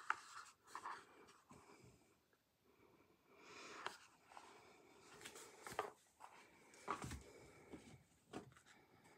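Faint handling noises of a rigid cardboard tarot box and card deck: a few soft taps and rustles as the box is turned over, set down and the cards picked up.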